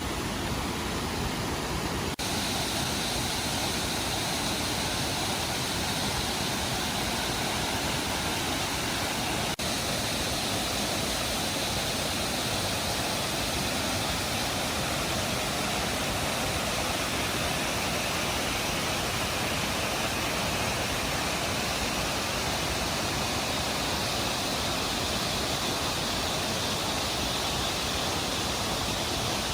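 Waterfall: a steady, loud rush of falling water that covers every pitch evenly, with two very brief breaks where the sound cuts out for an instant.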